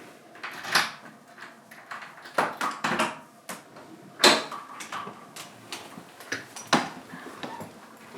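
Irregular knocks, clicks and clatters in a small room, about half a dozen spread unevenly, the loudest a little over four seconds in.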